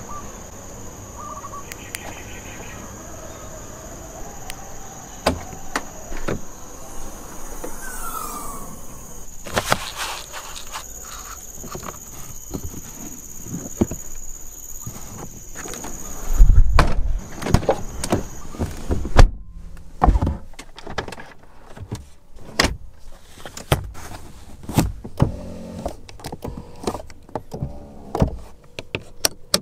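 A parked Mercedes-AMG GT C being handled. A faint background with a steady high whine gives way about halfway through to a run of clicks and knocks from the boot and cabin, with two heavy thuds like the boot lid or a door shutting.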